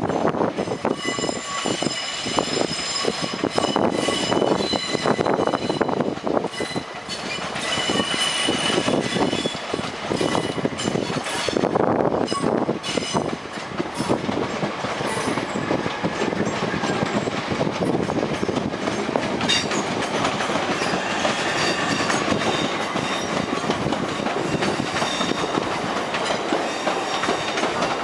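Electric multiple-unit passenger train running past through the station throat. Its wheels click over rail joints and points with a steady rumble, and thin high squealing tones ring through the first half.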